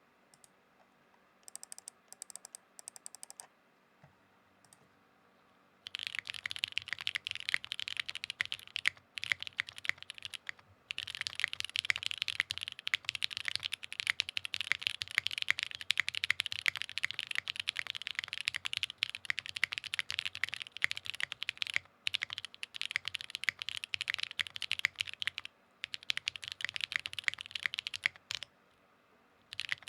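Custom Wind X65 mechanical keyboard being typed on, with L+F SP-Star Blue Pink switches on a POM plate and GMK keycaps. A few light taps come first, then about six seconds in fast continuous typing starts, stopping briefly a handful of times.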